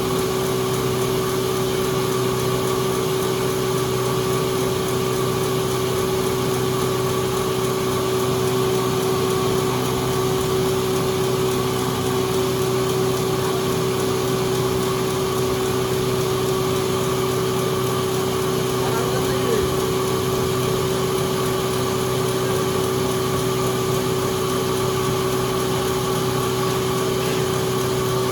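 Sawmill machinery running with a steady, unchanging hum.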